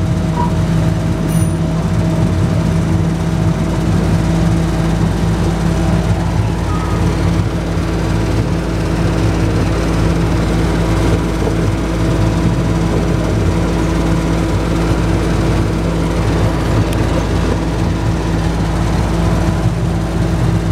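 Steady engine drone and rolling rumble of an open-sided tourist train under way, heard from inside its car, with a low hum that holds one pitch.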